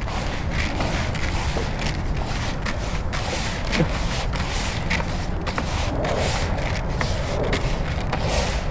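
A hand mixing and kneading wet rolled oats and sweet corn in a plastic bucket, giving many small crackling, squelching clicks, over a steady low rumble of wind on the microphone.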